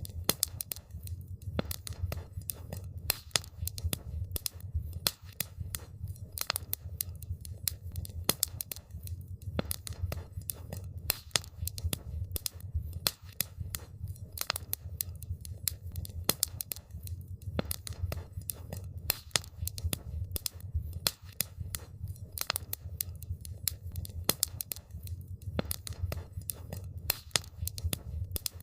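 Wood campfire crackling: rapid, irregular sharp pops and snaps over a steady low rumble.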